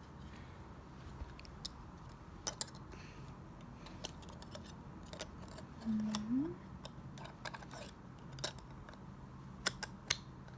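Magnetic toy rods and steel balls clicking together as pieces are snapped onto a model, in irregular sharp clicks. A short rising hum from a child's voice about six seconds in.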